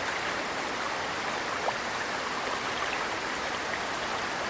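Running water of a stream, a steady even rush of noise with no let-up.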